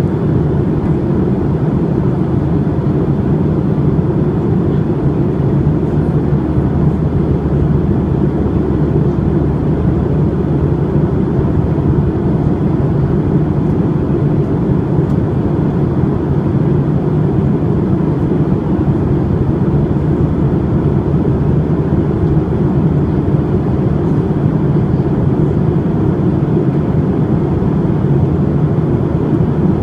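Steady cabin noise inside a Boeing 737-800: the drone of its CFM56 jet engines and the rush of air past the fuselage, heard from a window seat, even and unchanging throughout.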